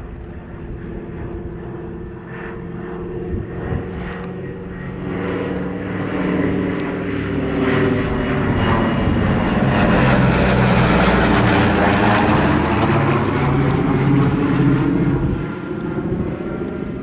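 Propeller aircraft engines passing close, growing steadily louder over several seconds, holding loud for a few seconds, then easing off fairly quickly near the end.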